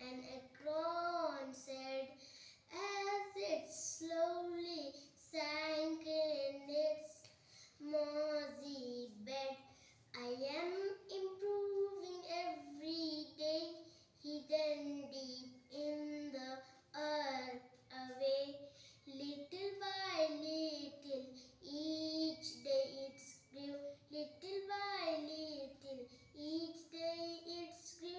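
A young boy singing a poem from his school book, unaccompanied, in a sing-song tune with short pauses between lines.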